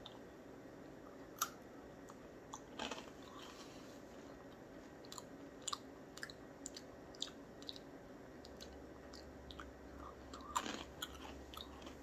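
A person biting and chewing a crunchy Chex Mix breadstick piece: faint, irregular sharp crunches.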